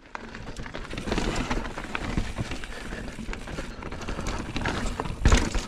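Fezzari Delano Peak full-suspension mountain bike riding fast over a rough dirt trail: a steady clatter of tyres on dirt and rocks with many small knocks and rattles from the bike, and a heavier thump about five seconds in.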